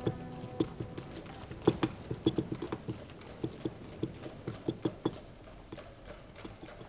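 Irregular light clicks and taps, a few a second, some sharper than others, thinning out toward the end.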